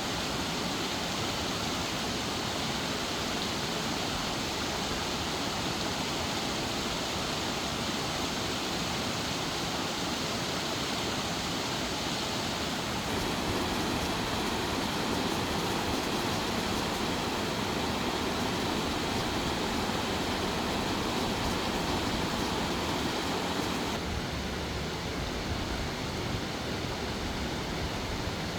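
Mountain valley stream flowing, a steady rushing of water. The sound shifts abruptly twice, about 13 and 24 seconds in, each time to a slightly different mix of splashing and deeper rushing.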